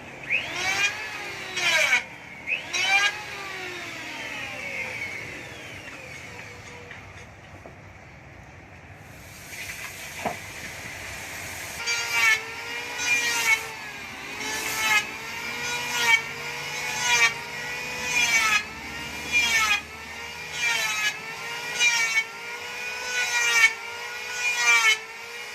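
A hand-driven spinning tool worked back and forth in strokes, its whine rising and falling in pitch with each stroke. It settles into a steady rhythm of about one stroke every 0.7 seconds partway through.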